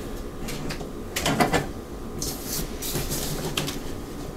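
Cardboard packing scraping and knocking as it is handled inside a tabletop popcorn machine's glass-walled cabinet, with a louder clatter about a second in.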